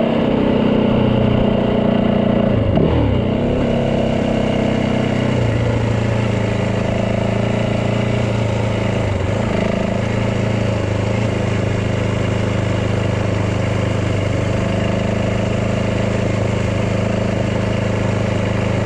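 Yamaha dirt bike engine running steadily at low speed, its pitch dipping briefly about three seconds in and again twice later as the throttle eases and picks back up.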